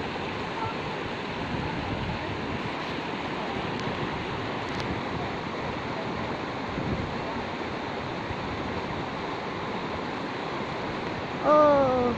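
Shallow river rushing steadily over rocks and boulders. Near the end a person gives one short, loud shout, the loudest sound here.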